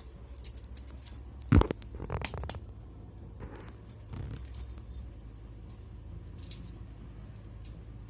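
Kitchen handling sounds: a sharp knock about one and a half seconds in, then a few brief scrapes and clicks, over a low steady hum.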